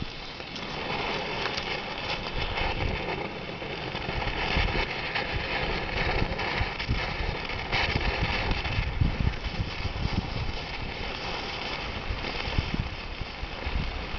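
Emergency road flare burning with a steady hiss, with wind buffeting the microphone.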